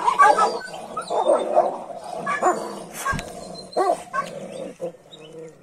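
Dogs crying out in distress, a series of loud yelps and whines that bend in pitch, from two dogs stuck together in a mating tie.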